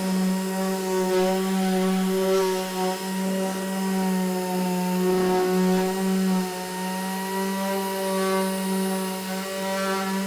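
Random orbital sander running at a steady pitch as it sands the gelcoat face of a glass-fibre panel, its motor hum wavering slightly as it is pressed and moved over the surface.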